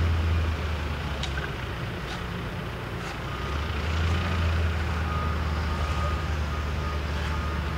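Heavy construction vehicle's engine running with a low hum, and from about three seconds in its reversing alarm beeps repeatedly.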